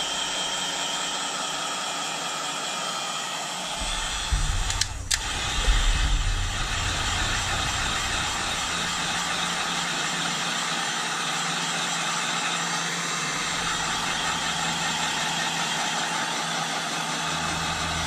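Handheld heat gun running steadily, its fan blowing hot air. A few low thumps and a click come about four to six seconds in.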